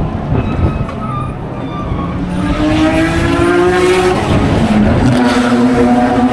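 Classic racing car engine accelerating hard, its pitch climbing, then dropping with a gear change about four and a half seconds in before pulling again.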